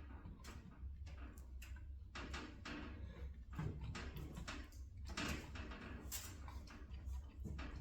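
Irregular scraping, rustling and light clicks of a resin statue being handled and worked onto its tight base pegs, over a steady low hum.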